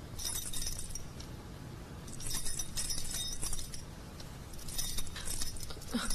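Light metallic jingling in three short spells, over a low steady hum.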